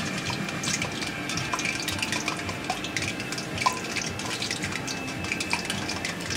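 Breadcrumbed mutton rolls sizzling in hot oil in a stainless steel wok as they are lowered in one by one: a steady sizzle with fine crackling, and one sharper pop just past halfway.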